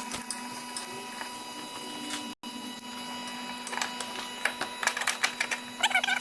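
Hand tools at work on the car's gearbox mount: a steady hum, then a run of rapid, sharp metallic clicks and clatter in the second half.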